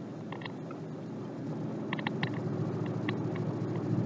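Vehicle cabin noise from the engine and tyres on the road, a steady low rumble that grows louder through the second half as the vehicle speeds up. Scattered short, high clicks sound over it.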